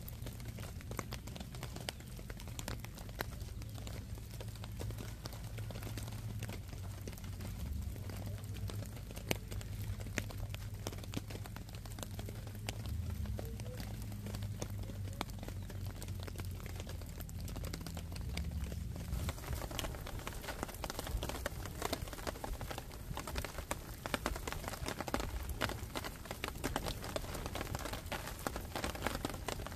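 Rain pattering on the shelter overhead: a dense, uneven stream of sharp drop ticks that grows heavier about two-thirds of the way through.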